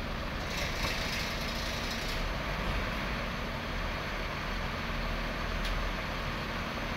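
A parked coach bus's diesel engine idling steadily, with a short hiss of air about half a second in and a single click near the end.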